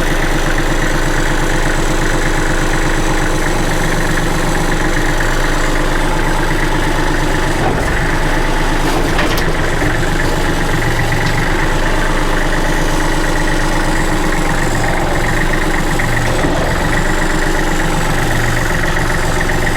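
Backhoe loader's engine idling steadily.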